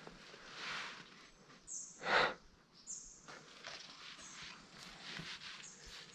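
Footsteps crunching on gravel and broken concrete rubble, irregular steps with the loudest crunch about two seconds in.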